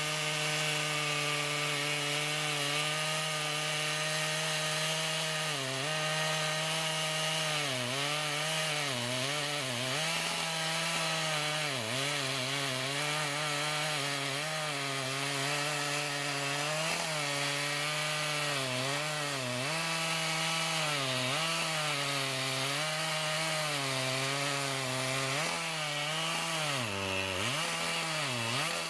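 Two-stroke chainsaw running at high revs while cutting through a large trunk. Its pitch dips again and again as the chain loads up in the wood, then drops sharply twice near the end.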